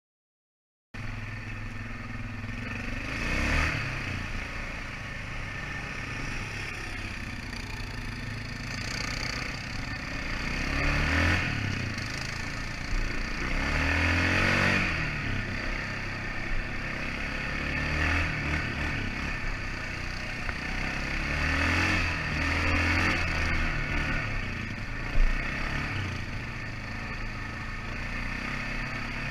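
ATV engine running, starting about a second in, its revs rising and falling every few seconds, with a single sharp knock near the end.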